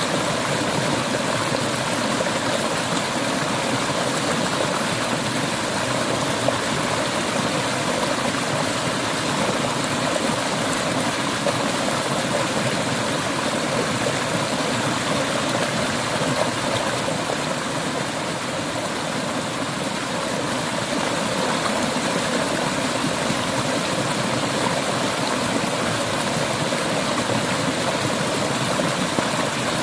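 River water flowing steadily over rocks, a continuous rushing burble that dips slightly about two-thirds of the way through.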